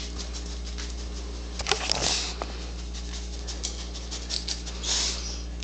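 A caged crow moving about on its wooden perch: scattered light clicks and taps, with two short rustles, about two seconds in and near the end, over a steady low hum. The crow gives no call.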